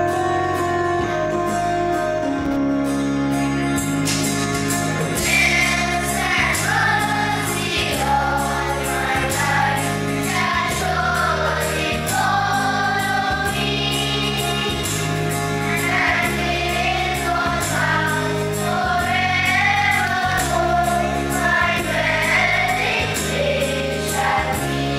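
A church choir sings a prayer song to instrumental accompaniment. Sustained chords and a steady beat come first, and the voices come in about five seconds in.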